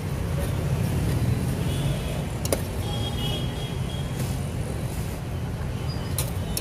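Steady low rumble of road traffic close by, with a sharp click about two and a half seconds in and another near the end.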